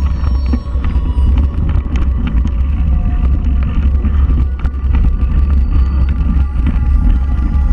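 Mountain bike ridden over a leaf-covered dirt trail: a steady low rumble with many small clicks and rattles as it runs over leaves and roots.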